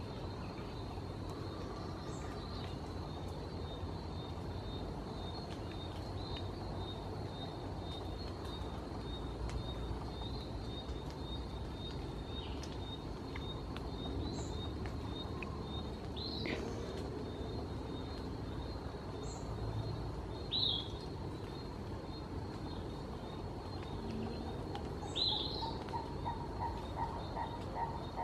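Forest ambience: a faint steady high trill throughout, with short, sharp bird chirps several times in the second half. Near the end comes a rapid run of evenly spaced lower bird notes.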